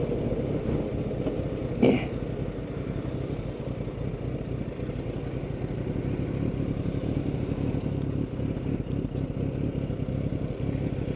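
Sport motorcycle engine running steadily while riding at town speed, heard from a helmet camera with wind rush over the microphone. A short loud burst about two seconds in.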